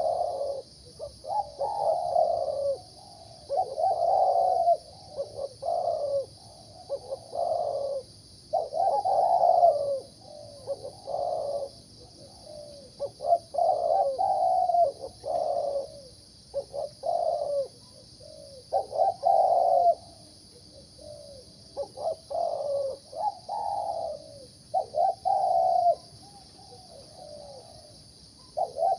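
Zebra dove cooing: short rolling phrases repeated again and again with brief pauses between them. The dove has the mid-pitched 'rising' voice prized in Thai dove-singing competitions.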